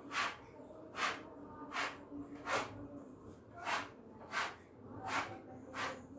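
Hand spatula scraping across a wall while spreading texture paint for a spatula-pattern finish: short strokes, about eight of them, a little under a second apart.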